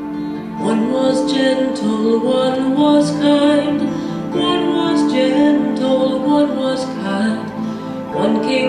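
Music from the show's soundtrack, held notes with a new phrase swelling in about half a second in and another near the end.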